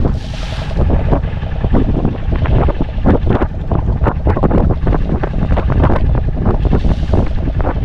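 Wind buffeting the microphone aboard a boat at sea, a constant heavy rumble with many short knocks, and brief hissing bursts near the start and about seven seconds in.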